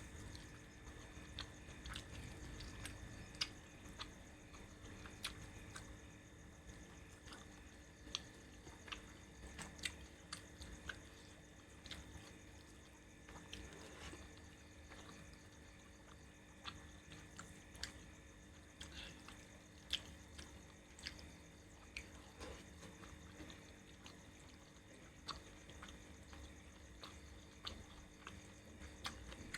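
Faint close-miked eating sounds: a person chewing, with small wet smacks and irregular sharp clicks.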